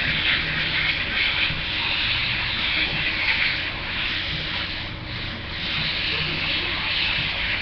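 Airbrush spraying paint: a steady hiss of air that eases off briefly about five seconds in.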